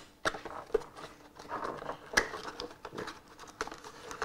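A small cardboard box being handled and opened by hand: irregular taps and clicks with soft rustling of the card flaps and packaging, and a sharper click about two seconds in.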